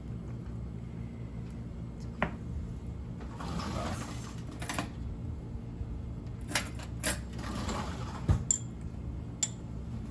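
A kitchen utensil drawer being rummaged through: metal utensils clinking and rattling, with several sharp clicks and knocks spread through, over a steady low room hum.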